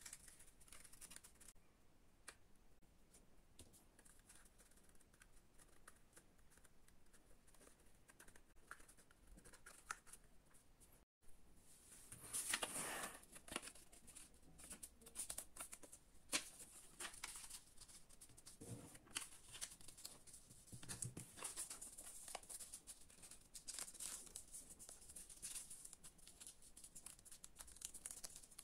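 Faint rustling, crinkling and creasing of stiff paper being folded by hand, with small clicks. It is sparse at first, cuts out for a moment about halfway, then grows busier and louder.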